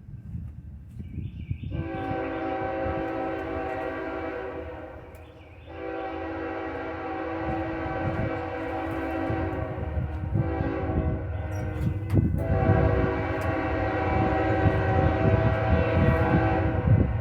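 Locomotive air horn sounding a chord in four blasts, long, long, short, long: the standard signal for a train approaching a grade crossing. Under it is the low rumble of the train, growing louder.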